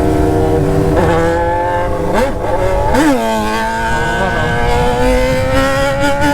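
Sport motorcycle's inline-four engine pulling along in second gear, its pitch climbing slowly, with two quick throttle blips about two and three seconds in.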